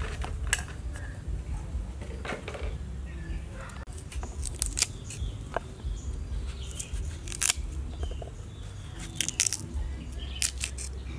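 Small knife cutting and scoring raw sweet potato flesh on a wooden cutting board: a series of irregular sharp clicks and crisp snaps, some in quick clusters.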